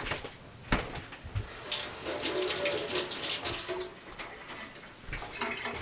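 Kitchen tap running into a sink for about two seconds while a spoon is rinsed under it, after a knock or two.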